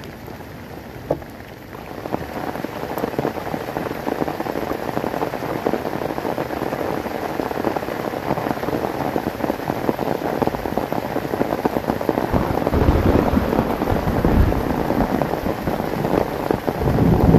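Heavy rain falling on a spread plastic tarp and leaf litter, growing heavier about two seconds in. A low rumble builds near the end.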